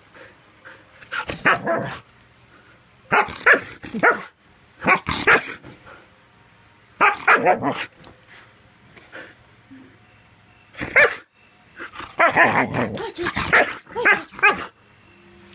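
Husky barking in a string of short bursts while playing and roughhousing, the longest run of barks near the end.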